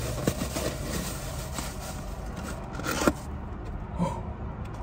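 Takeout food packaging being wrestled and pulled open by hand: crinkling, scraping and tearing, with one louder crackle about three seconds in, then quieter handling.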